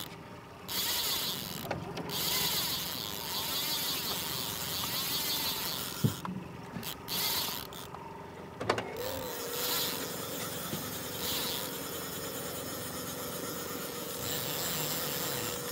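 Electric downrigger winding its cable up: a steady motor whine that starts about nine seconds in, over the boat's engine and water noise.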